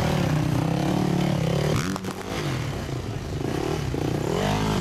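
Enduro dirt bike engine running steadily, easing off about two seconds in, then revving up hard with a rising pitch near the end as the bike is powered over a log obstacle.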